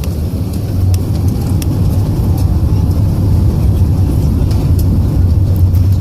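Airbus A380 jet engines at takeoff thrust: a deep, loud rumble that builds over the first second, then holds steady.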